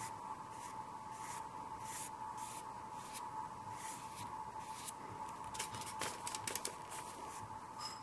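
Bristle paintbrush stroking acrylic paint onto a taped-down sheet: a soft, scratchy swish about twice a second, with a few quick clicks around six seconds in. A steady faint high hum runs underneath.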